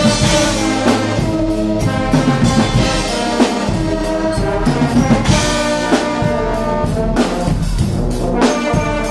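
Guggenmusik carnival brass band playing: sousaphones, trombones and trumpets in loud massed chords over a driving drum beat.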